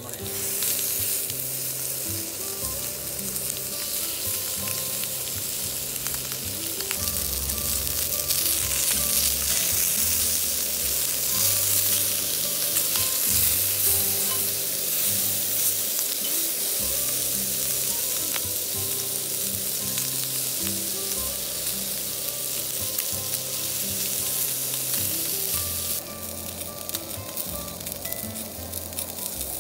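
Meat sizzling on a hot iron steak plate: a dense, steady sizzle that grows louder over the first couple of seconds and drops down a step near the end.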